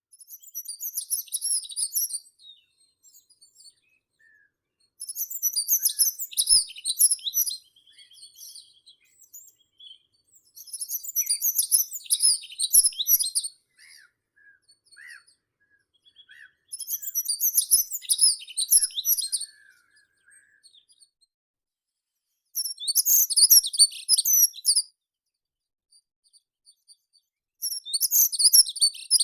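A songbird singing a rapid, high-pitched song phrase about two seconds long, repeated six times at intervals of five or six seconds, with a few faint softer calls in the pauses.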